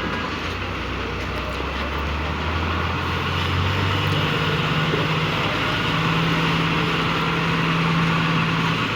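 A heavy road vehicle's engine droning, its low pitch rising in steps over the first few seconds as it pulls away, then holding steady before falling away near the end, over steady traffic noise.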